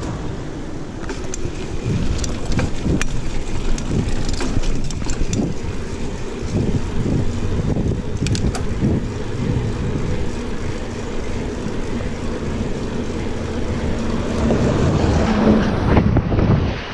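Wind buffeting an action camera's microphone while cycling along a road: a gusting low rumble with a few faint clicks. It swells louder a couple of seconds before the end.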